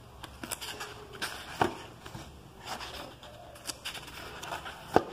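Paper pages of a book being handled and leafed through, with light rustling and a couple of sharper taps about one and a half seconds in and near the end.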